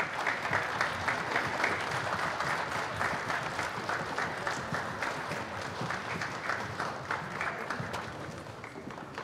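Audience applauding: dense, steady clapping from many hands in an auditorium, thinning out and fading near the end.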